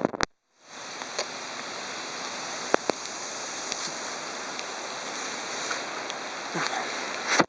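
Steady rushing of rainstorm water, with scattered sharp ticks through it. It starts abruptly about half a second in, after a brief gap, and cuts off at the end.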